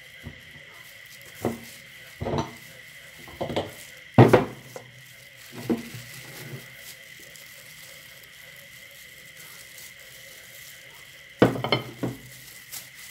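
A glass dish set down and shifted on a wooden tabletop: a handful of separate clinks and knocks, the loudest about four seconds in and a quick cluster near the end.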